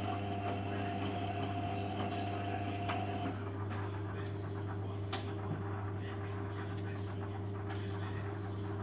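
Beko Eco Care WMA 1510 W washing machine running its main wash: a steady motor hum as the drum turns, with a thin whine that stops about three seconds in and a sharp click about five seconds in.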